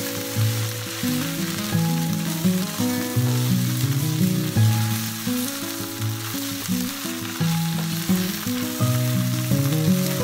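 Background instrumental music, a melody of held notes changing every half second or so, over the sizzle of idli pieces frying in oil in a pan as a silicone spatula stirs them.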